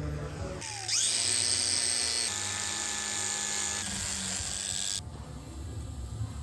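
A high-speed electric power tool spins up with a rising whine about a second in, runs steadily at speed, and cuts off sharply about five seconds in.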